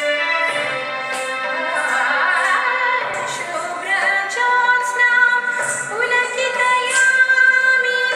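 Recorded Odissi dance music: a woman singing an ornamented melody with held and gliding notes over instrumental accompaniment, with crisp high beats about twice a second.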